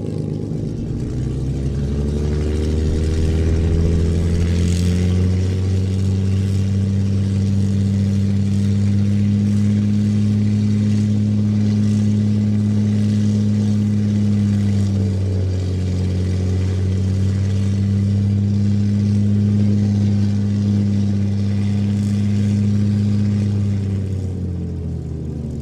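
P-51D Mustang's Packard Merlin V12 engine running on the ground with the propeller turning, a steady deep note. The engine note rises over the first few seconds, dips briefly about halfway, and falls away near the end.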